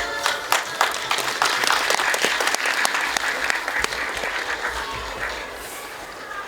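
Audience applauding at the end of a dance number, thickest in the first few seconds and thinning out toward the end.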